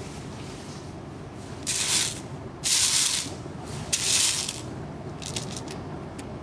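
Tiny plastic building bricks rattling in three short bursts as loose pieces are stirred in a tray, followed by a few light clicks.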